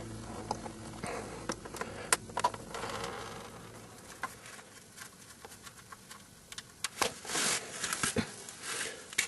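Scattered light clicks and scrapes of hand tools working on the engine's oil-drain area, with a brief rushing hiss about seven seconds in.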